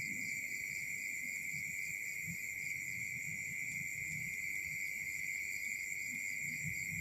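Night insect chorus, likely crickets: a steady high trill with no breaks, and fainter pulsing chirps higher up, over faint low rustling.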